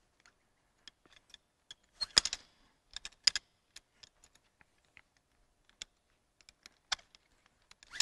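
Irregular light clicks and small rattles of metal harness hardware (the ventral D-ring and the devices clipped near it) knocking together as the dynamic rope is worked through a knot at the harness. The clicks are loudest in a short cluster about two seconds in, with more around three seconds and near the end.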